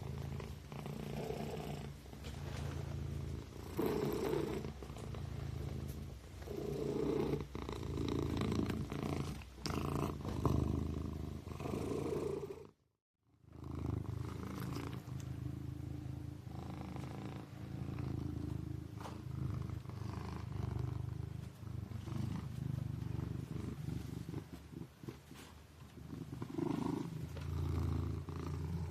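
Kitten purring: a continuous low rumble that rises and falls in swells every second or two. It breaks off to silence for about half a second near the middle.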